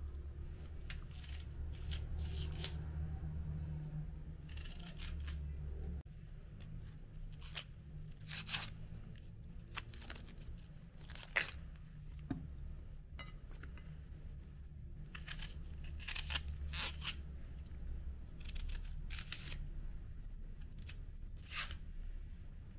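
Dry onion skins being cut and torn off with a small paring knife: irregular short, crisp rasps and snaps, with a low steady hum underneath.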